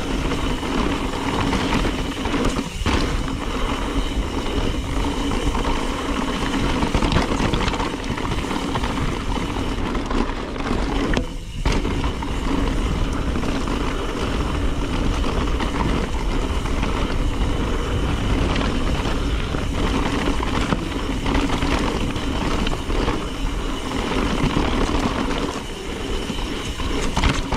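Mountain bike rolling fast down dry dirt singletrack: a steady rush of wind over the action camera's microphone mixed with the knobby Maxxis Minion tyres running on dirt, briefly dropping about eleven seconds in.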